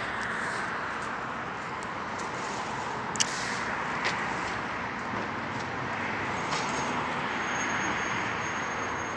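Steady background noise with no clear pitch, with a single sharp click about three seconds in.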